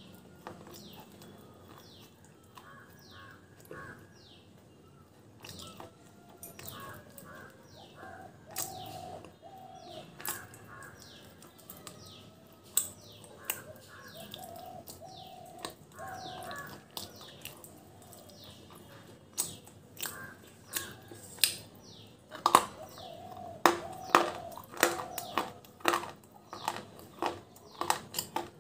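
Close-up crunching of a dry, chalky chunk of edible clay being bitten and chewed: sharp, loud crunches that come only now and then at first, then thickly from about two-thirds of the way in. Birds chirp steadily in the background.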